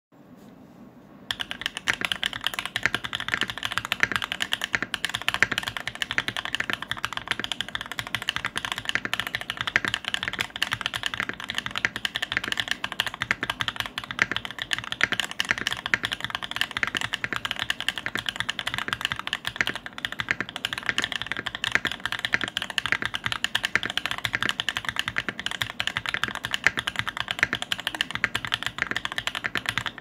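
Fast, continuous typing on a mechanical keyboard with stock Gateron Smoothie linear switches in an acrylic top-mount case, no foam and a three-layer tape mod, the keystrokes clicking in a dense, even stream. The typing starts about a second in.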